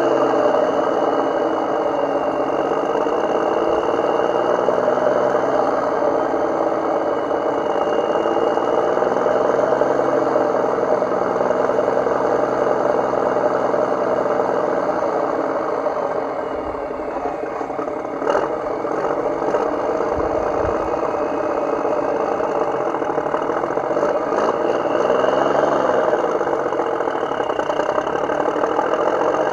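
A motor running steadily, its pitch drifting up and down, with a short knock about eighteen seconds in.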